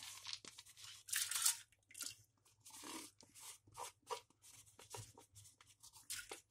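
Dry dal (lentils) poured from a plastic container into an aluminium pressure cooker with water in it: a string of irregular small rattles and rustles, with the plastic container knocking against the pot.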